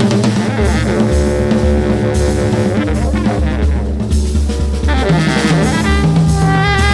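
Baritone saxophone and drum kit playing jazz together: the saxophone holds long low notes over busy drumming with cymbals.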